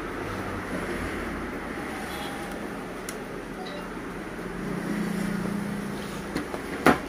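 Handling of a siren amplifier's metal box and its plastic wiring connector: one sharp click near the end, over a steady background rumble.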